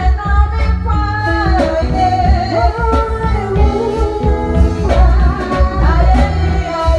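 A band with drums and heavy bass playing a song while a singer sings the melody.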